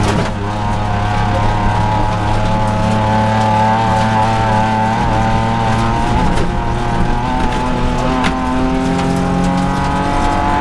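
Rally car engine running under load, heard from inside the cabin, its pitch holding fairly steady with small rises and dips. Gravel noise from the tyres and underside sits beneath it, with a sharp knock about eight seconds in.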